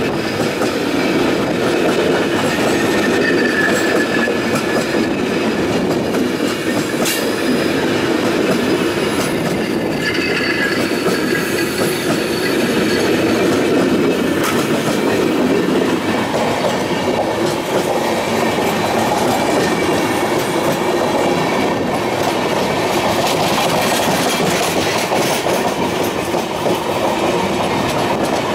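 Air-conditioned passenger coaches of an express train rolling slowly past at caution speed: a steady rumble of wheels on rail with a clickety-clack over the rail joints. A faint brief squeal from the wheels comes twice, a few seconds in and again about ten seconds in.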